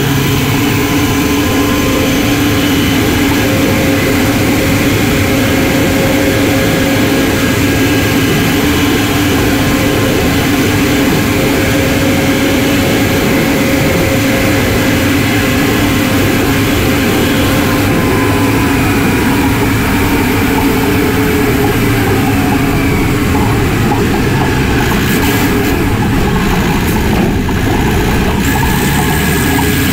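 Detroit Diesel Series 60 12.7-litre diesel and its variable-vane turbocharger running with the truck under way, heard up close in the engine bay: a loud, steady drone with whining tones, some of which slide down in pitch a little past halfway.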